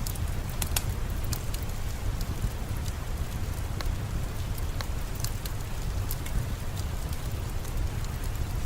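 Steady rain with a low rumble, mixed with the scattered crackles and pops of a wood fire in a fireplace.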